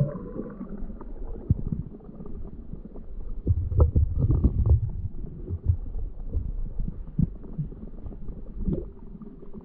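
Muffled underwater sound of a mountain stream picked up by a submerged camera: a low rumble of moving water with irregular low knocks and thumps as hands grope among the stones, busiest about four to five seconds in.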